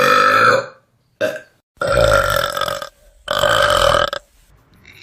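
A person burping loudly four times in a row. The second burp is short and the others last about a second each.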